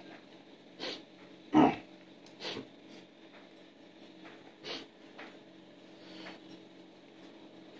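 Close mouth and breath noises of people eating by hand: a handful of short sniffs, smacks and breathy snorts, the loudest about a second and a half in, over a steady low hum.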